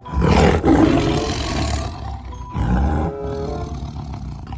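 Tiger roaring twice: a first roar of about two seconds, then a second, shorter one about two and a half seconds in that trails off more quietly.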